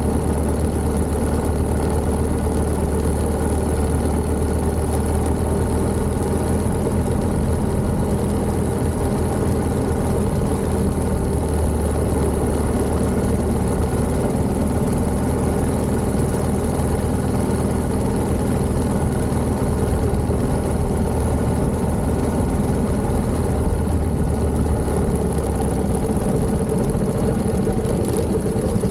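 1929 Méray motorcycle's JAP 600 engine running at a steady, even pace.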